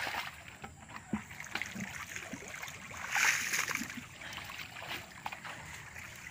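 Splashing and sloshing of hands groping through shallow muddy pond water, with a louder splash about three seconds in.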